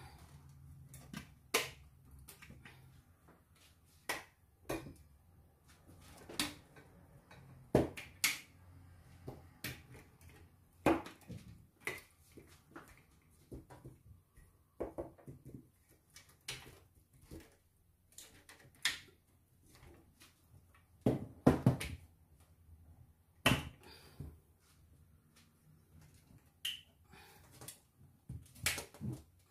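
Irregular clicks and knocks of a folding laptop table being handled: its legs and pivot joints are swung and set, and the frame taps on the table it stands on. A quick cluster of louder knocks comes about two-thirds of the way through.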